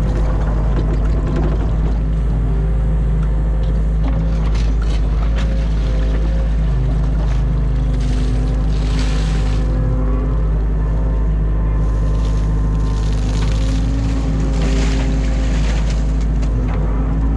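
Mini excavator's diesel engine running steadily under load, with a hydraulic whine that shifts in pitch as the arm lifts the bucket and swings. Several short hissing surges come and go over the engine noise.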